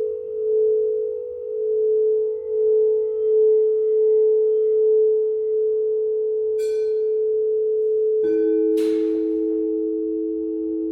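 Singing bowls ringing: one bowl sustains a steady tone with a slow wavering. A light strike comes partway through, then a second, lower-pitched bowl is struck about eight seconds in and rings on with the first. A short hissing sweep follows that strike.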